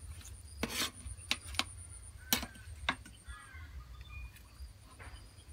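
Five or so sharp clinks and knocks in the first three seconds, a metal ladle against an aluminium steamer tray. A bird chirps faintly a few times afterwards, over a thin, steady, high insect whine.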